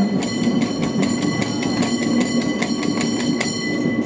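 San Francisco cable car in motion, heard on board: a steady low rumble and a constant high hum, with irregular clicks and rattles from the car running on the track.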